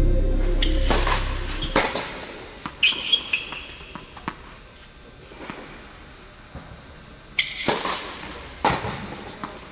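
Background music fading out over the first two seconds, then tennis on an indoor hard court: several sharp ball impacts, the ball bounced on the court before a serve, and a sharp racket-on-ball hit of a serve near the end, with a couple of brief high squeaks.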